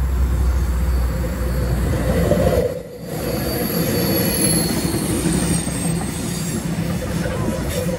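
A V-set double-deck intercity electric train passing close by, with a steady rumble of wheels on the rails. Thin high tones sound above the rumble. The sound drops out briefly about three seconds in.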